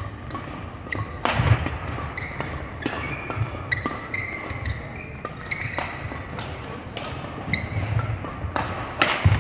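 Badminton rally: repeated sharp racket hits on the shuttlecock, with short high squeaks of shoes on the hardwood court floor. The loudest hits come about a second and a half in and near the end.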